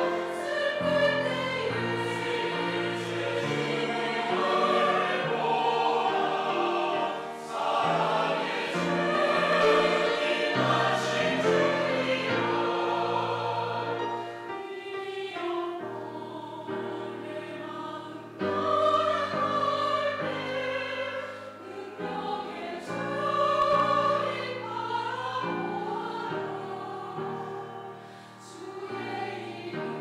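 Mixed church choir of men and women singing a sacred choral anthem in sustained chords, the sound swelling and easing, softer for a few seconds about halfway through before it builds again.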